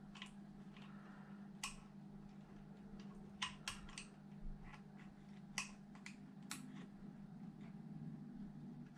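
Small screws, washers and a hand tool clicking as hardware is fitted on an RC truck: a handful of scattered sharp clicks over a steady low hum.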